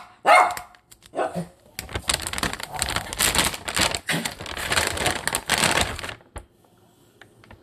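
A dog barks twice in the first second and a half. Then plastic packaging of pepperoni dog treats crinkles and rustles for about four seconds, ending with a single click.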